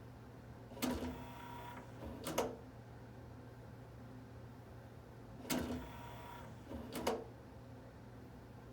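Yamaha CDC-625 CD changer's motorised loading mechanism running twice. Each time there is a sharp click, about a second and a half of mechanical whirring and rattling, then a clunk as it stops. A steady low hum runs underneath.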